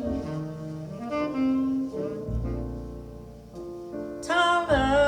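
Ballad playing from a recording: an instrumental passage between sung lines, with held melodic notes over piano. About four seconds in, a louder wavering voice comes in.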